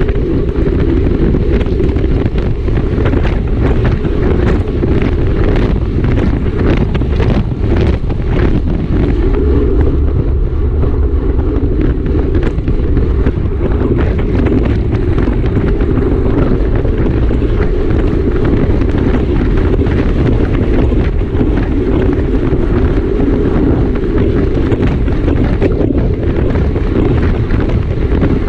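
Wind rushing loudly and steadily over the microphone of a camera on a racing bicycle at race speed. Scattered light clicks come through, most of them in the first nine seconds or so.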